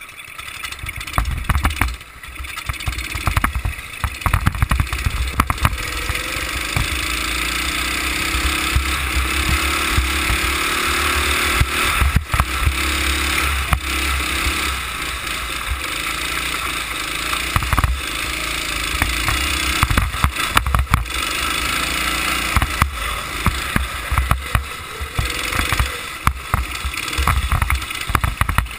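Onboard sound of a go-kart engine running under load, its pitch rising and falling as the kart speeds up and slows through the corners. Wind noise on the camera and frequent short knocks run throughout.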